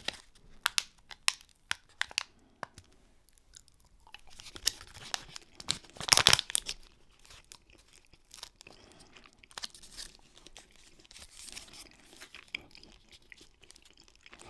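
Close-up handling of a snack-bar wrapper: irregular crinkles and clicks, then a louder tearing burst about six seconds in, followed by faint crackling. It comes with close chewing of a pressed date-and-fruit bar.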